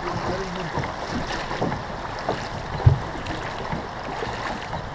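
Steady rush of river water around a boat with wind buffeting the microphone, and one short, low thump just before three seconds in.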